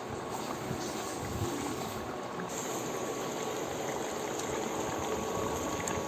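Thick curry sauce simmering in a pot, a steady bubbling with faint ticks.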